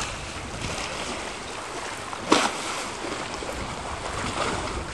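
Wind on the microphone and water moving around a kayak on open sea, with one sharp splash about two seconds in and a lighter one near the end.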